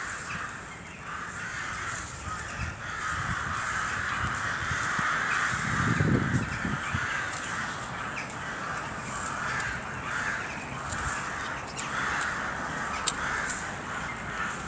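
A flock of crows cawing continuously, many birds calling over one another. A brief low rumble rises and fades about six seconds in.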